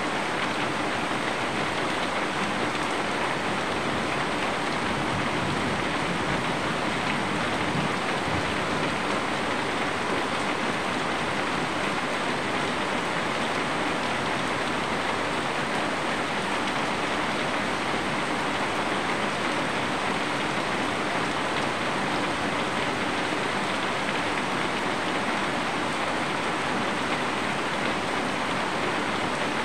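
Steady rain falling, an even hiss of many drops that holds level throughout with no lulls or gusts.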